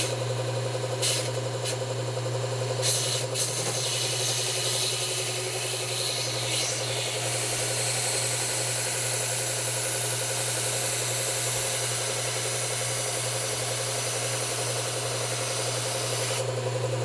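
Electric belt sharpener running with a steady motor hum while a pruner blade is ground on the belt: a rasping hiss from about three seconds in until just before the end, the grinding stripping the blade's black coating. A few knocks in the first few seconds.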